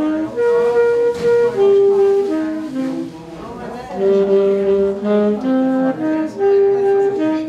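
Background music: a single melody line of held notes, each lasting about half a second to a second.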